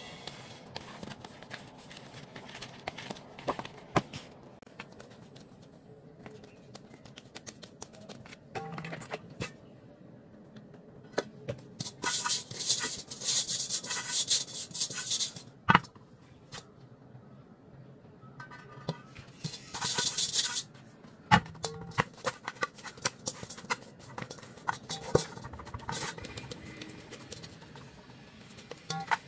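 Bread dough being kneaded and handled on a table, with scattered soft knocks and taps, then a stainless steel mixing bowl being handled, with two stretches of rough hissing scraping and a couple of sharp knocks against the bowl.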